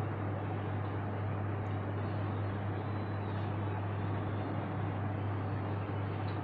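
Steady low hum over a constant even hiss, unchanging throughout.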